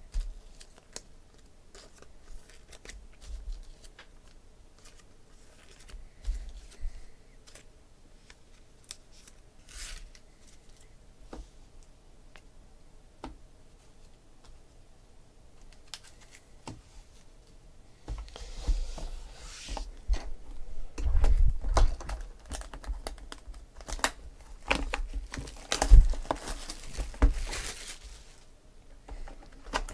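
Faint scattered handling clicks, then, about two-thirds in, the plastic shrink-wrap of a sealed trading-card box being cut and torn off, crinkling loudly in bursts.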